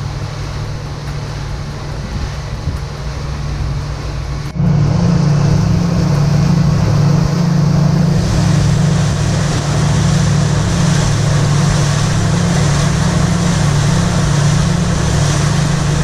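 A motor cruiser's engine running steadily underway, a low hum with wind and water rush over it. It gets suddenly louder about four and a half seconds in, and a brighter hiss joins a few seconds later.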